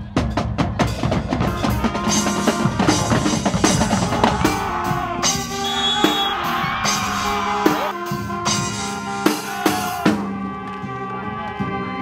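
Marching band playing in the stands: a quick run of drum strikes from bass and snare drums, then horns come in about two seconds in with held chords over the continuing drum hits.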